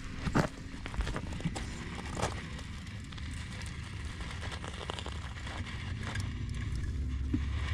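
RC rock crawler climbing a rock face: its drivetrain runs steadily under a low rumble while tyres and chassis knock and scrape on the rock. The loudest knock comes about half a second in, with more around one and two seconds in.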